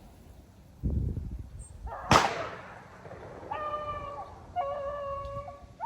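A single shotgun shot about two seconds in, sharp and echoing off as it fades, that kills a rabbit running ahead of the hounds. Afterwards, hounds bay in a few long, level notes.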